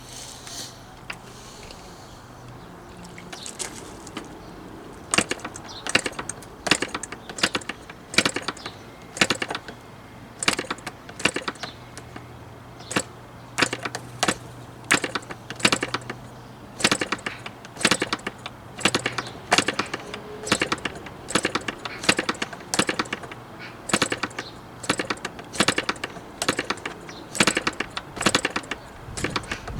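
Repeated clusters of sharp clicks and clatters, about one cluster a second, over a steady low hum that stops about two-thirds of the way through.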